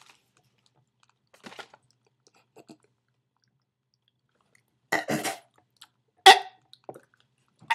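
A man gagging and retching on a mouthful of chewing tobacco: faint mouth noises, then two short harsh retches about five and six seconds in and a brief third near the end.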